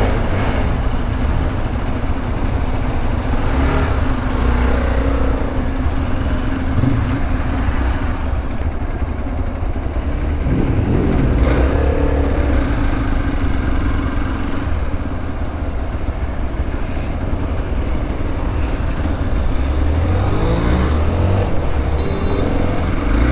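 Hero XPulse motorcycle engines running steadily. The pitch rises as an engine is revved or pulls away, about ten seconds in and again near the end.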